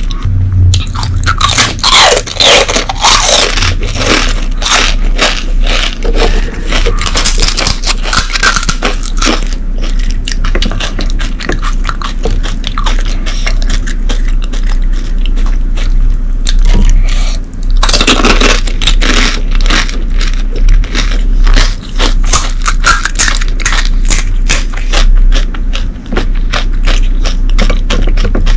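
Close-miked crunching and crackling of crisp, hollow panipuri shells as they are chewed and cracked open with the fingertips for filling. The crackle is dense throughout, with louder spells a couple of seconds in, around eight seconds and around eighteen seconds.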